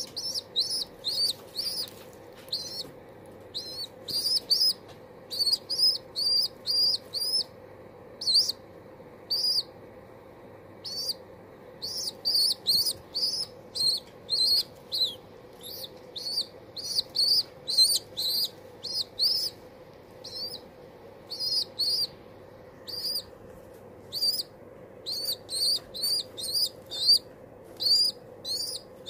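Young pigeon squabs peeping: short, high, squeaky calls repeated in quick runs of one to four, with brief pauses between runs.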